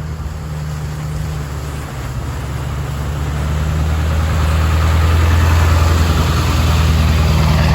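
Ford F350 pickup engine running at low revs as the truck creeps through a mud hole in two-wheel drive, the tyres not spinning. The engine gets louder over the first few seconds and then holds steady.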